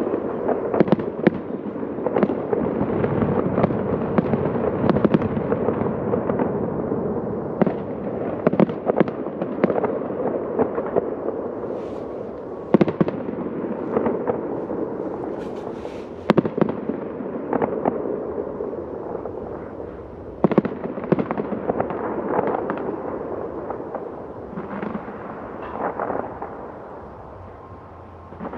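Fireworks display: many sharp bangs and pops over a continuous dense crackle and rumble of aerial shells bursting, echoing between high-rise buildings and thinning out toward the end.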